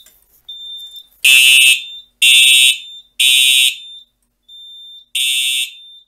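Fire alarm horns sounding the temporal-three evacuation code: three short, harsh blasts about a second apart, a pause, then the next round starting. A fainter high steady tone sounds in the gaps. The horns are answering a pull station put into alarm on a Simplex 4010 fire alarm panel.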